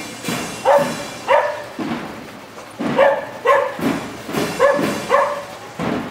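A dog barking repeatedly, about seven sharp barks, mostly in pairs about half a second apart.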